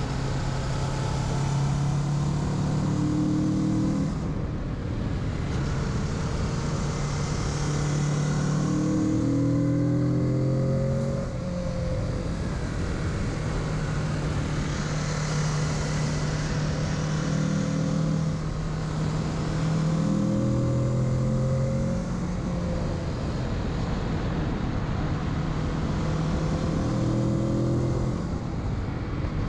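2021 Kawasaki Z650's parallel-twin engine running on the move, its pitch stepping up and dropping back every few seconds as the throttle is rolled on and off through the corners, over a steady rush of wind noise.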